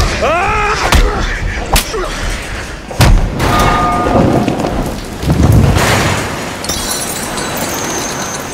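Movie fight sound effects: several heavy hits and thuds over the first three seconds, with a strained vocal cry just after the first, then a loud wash of pouring, rushing water.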